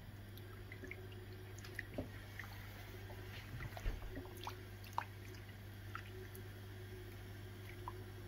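Pot of lamb stomach pieces in liquid on a gas hob, simmering quietly: sparse small bubble pops and drip-like plinks, about one a second, over a low steady hum.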